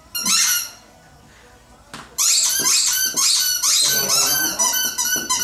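Old English Sheepdog puppy squeaking in high-pitched whines: one short squeak at the start, then after a click about two seconds in, a rapid string of squeaky whimpers.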